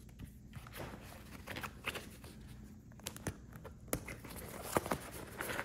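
Revelate Designs Spinelock 10-litre roll-top seat bag being handled and opened: its stiff waterproof fabric rustling and crinkling, with a few sharp clicks scattered through.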